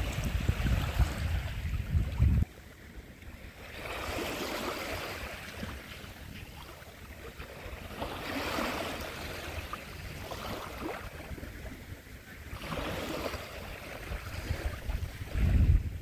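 Small Baltic Sea waves washing up a fine pebble beach and draining back, one swash about every four to five seconds. A low wind rumble on the microphone fills the first couple of seconds, stops suddenly, and comes back briefly near the end.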